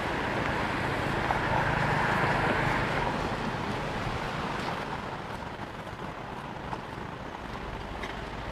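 Roadside traffic noise: a vehicle goes by, loudest in the first few seconds and then fading, over a steady outdoor rumble.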